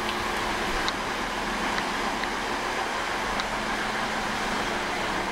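Steady railway-station noise: a diesel regional train's engine running with a constant low hum under a broad rushing hiss, and a few faint clicks.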